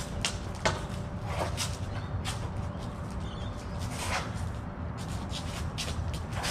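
Blade sparring: a string of short, irregular clacks and scuffs from training blades and quick footwork, over a steady low background rumble.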